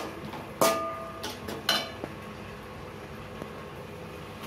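A metal spatula strikes the side of a metal kadai while stirring a masala: one ringing clang about half a second in, then two lighter clinks. After that only a low steady hiss remains.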